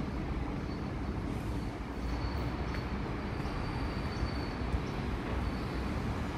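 Vintage single-deck 'Red Rattler' electric train approaching slowly along the platform with a steady low rumble. A faint thin high tone holds through most of it.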